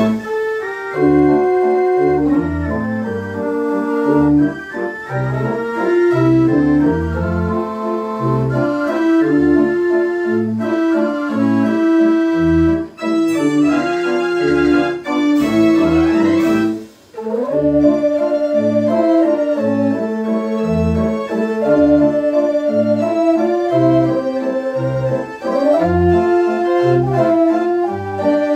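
1904 J. Bursens mechanical organ "Het Kind" playing a tune, its pipes sounding a melody over chords and a steady pulsing bass. About two-thirds of the way through, a rising glide leads into a brief break before the music resumes.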